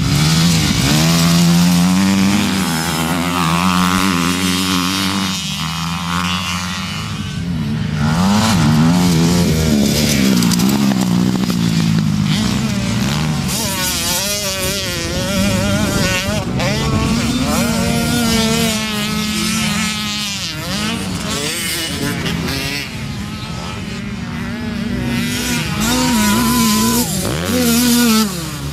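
Motocross bike engines revving hard as riders race through corners and past the camera. The pitch climbs and drops again and again with throttle and gear changes, and at times more than one bike is heard at once.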